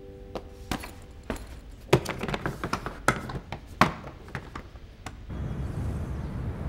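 Suitcases being handled, with irregular knocks, clicks and a couple of sharper thuds. About five seconds in these give way to a steady low background rumble.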